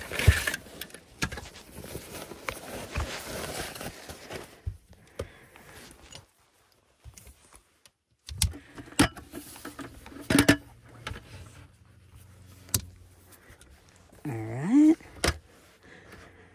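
Fabric and bag rustling, then sharp clicks and knocks as a small folding table's metal legs are opened and set down, with a laptop placed on top. Near the end there is a short sound that dips and then rises in pitch.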